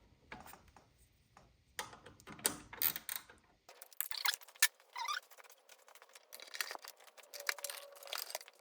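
Irregular clicks, knocks and metallic clatter of hand tools and bolts being handled while parts are refitted on a motorcycle.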